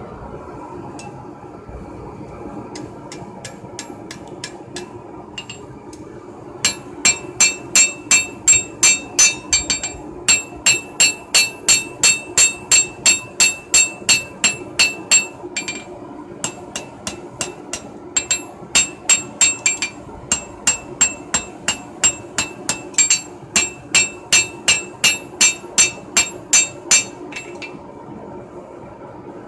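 Blacksmith's hammer forging a red-hot knife blank on an anvil: runs of ringing blows, two to three a second with short pauses, starting about seven seconds in and stopping near the end, after a few lighter taps.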